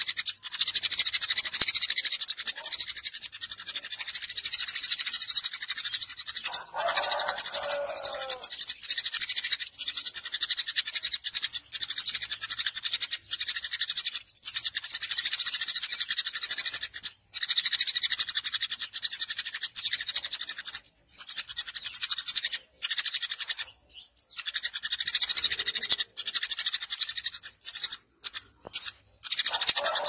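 Eurasian tree sparrow chirping in a continuous, rapid, high-pitched chatter, broken by several short pauses.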